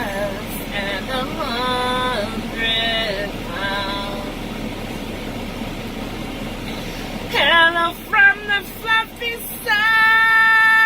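A woman singing unaccompanied in a truck cab, in held, drawn-out phrases with a pause of a few seconds in the middle and a long held note near the end. A concrete truck's engine runs steadily underneath.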